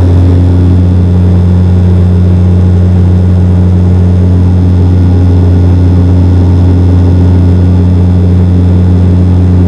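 Dash 8 Q400 turboprop's Pratt & Whitney PW150A engines and six-blade propellers running steadily in flight, heard from inside the cabin beside the propeller as a loud, even drone with a low hum.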